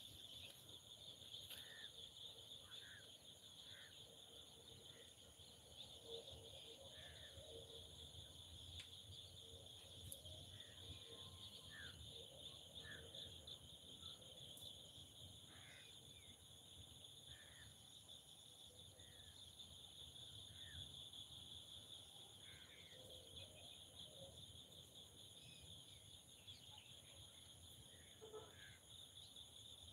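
Faint insect chorus of crickets or similar, a steady continuous high buzz, with short bird chirps scattered every second or two.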